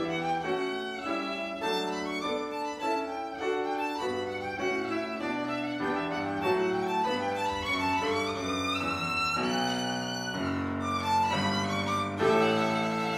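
Violin playing a minuet with piano accompaniment. A run climbs high about eight seconds in, then the phrase breaks off and resumes.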